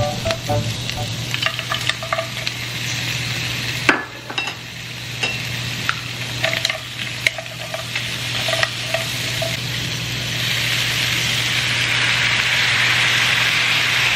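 Seafood sizzling in a nonstick frying pan, with light clicks of kitchen tongs against the pan as shrimp and mussels are stirred. About ten seconds in, the sizzle grows louder and steadier.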